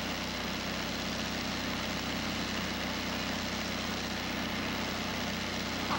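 Steady low mechanical drone, an even hum of several low tones with a hiss over it, running unchanged.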